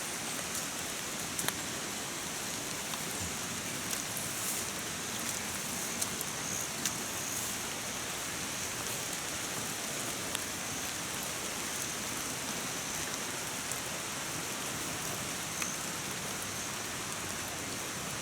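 Rain falling on a river: a steady hiss of rain on the water, with a few sharper drop taps here and there.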